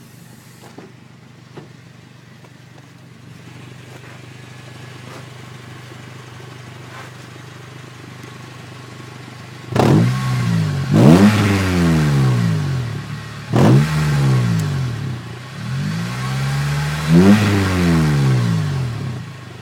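2003 Honda Civic Si's 2.0-litre four-cylinder engine idling steadily, then revved up and let fall back several times from about halfway, much louder on each rev. The car has an exhaust leak.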